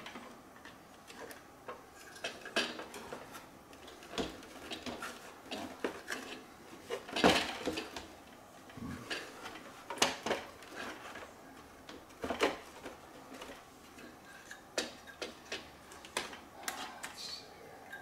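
Irregular clicks, knocks and rattles of hard plastic parts and a circuit board being handled during disassembly of a robot vacuum's clean base, the loudest knock about seven seconds in.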